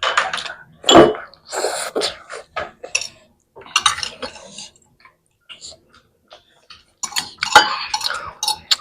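Forks and plates clinking in irregular short clicks during a meal, mixed with close-up eating noises.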